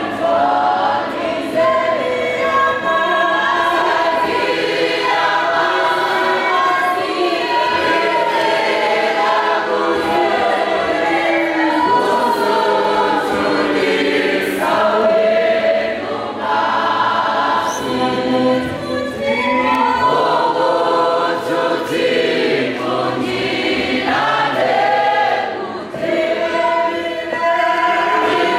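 Church congregation singing a gospel song together in chorus, with a man's voice leading through a microphone and loudspeakers.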